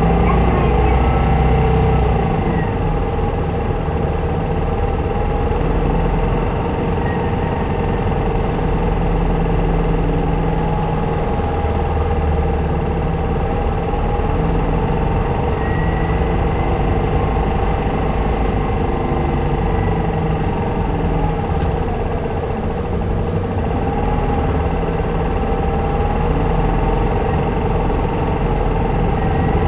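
Keio city route bus's engine and drivetrain running as the bus drives, a steady hum with a whine that rises and falls gently with speed.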